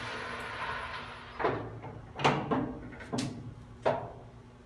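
Heavy metallic clunks, five in about two and a half seconds, as the gear-change levers on the headstock of a 52-inch LeBlond engine lathe are thrown. A steady machine running sound fades away just before them, and a faint hum stays.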